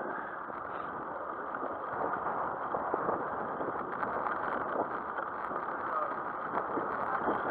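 Steady rushing noise of a bicycle rolling along tarmac, with wind buffeting the camera's microphone.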